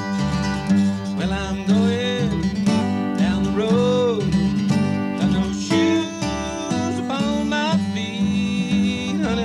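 Live bluegrass: an acoustic guitar strumming and an upright bass playing a steady beat under a man's singing voice.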